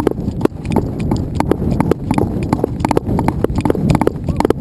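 Rapid, irregular knocks and crunches, several a second, over a low rumble.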